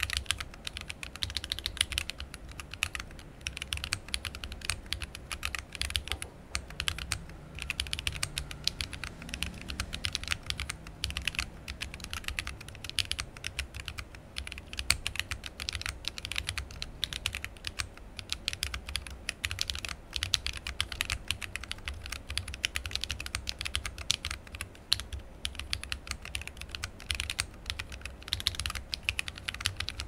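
Continuous fast typing on a Corne split keyboard fitted with lubed Polar Holy Panda tactile switches in an acrylic sandwich-mount case, with PBT OEM-profile keycaps: a dense, uneven stream of keystroke clacks.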